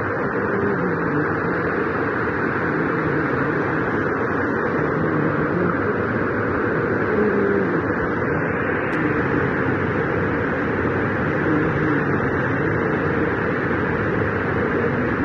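Heavy rain falling: a steady, dense rush that does not let up.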